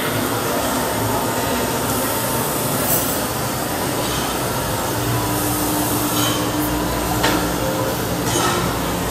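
Steady background din of a busy café dining room, a constant noisy hum with no clear voices or music standing out.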